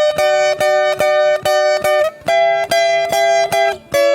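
Viola caipira playing a plucked melody in paired notes, about two strokes a second.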